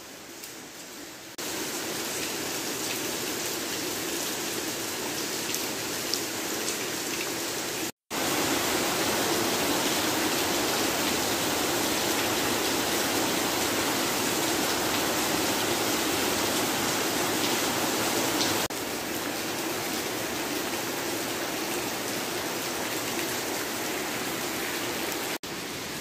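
Steady rain falling on trees and foliage, an even hiss. It jumps in level at several cuts between clips, with a brief break about eight seconds in.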